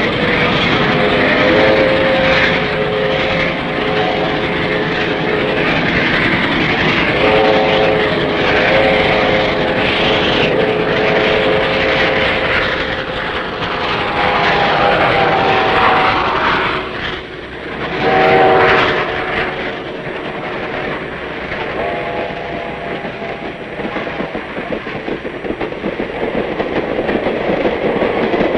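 Steam locomotive's multi-note steam whistle blowing about five times, the first two blasts long and the later ones shorter, over the steady rumble and clatter of the train running past close by.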